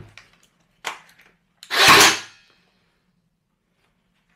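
Cordless 18-gauge brad nailer firing a 50 mm finishing nail into a wooden block: one sharp shot about two seconds in, preceded by a light click about a second in.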